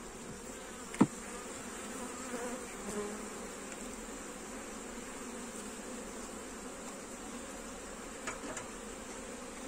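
Honeybees buzzing steadily around an opened hive. About a second in there is a single sharp knock of the metal hive tool against the wooden frames.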